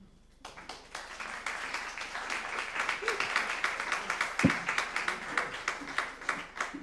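Audience applauding, starting about half a second in and dying away near the end, with a single low thump midway through.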